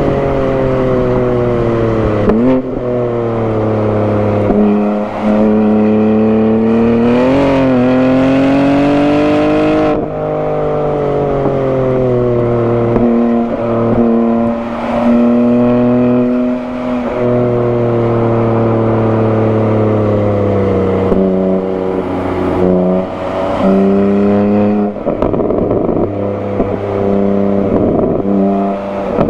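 The twin-turbo inline-six of a manual BMW G80 M3, fitted with a non-resonated single midpipe, pulling hard on track. Its pitch rises and falls repeatedly through acceleration, lift-offs and gear changes, with a sharp upward jump about two and a half seconds in.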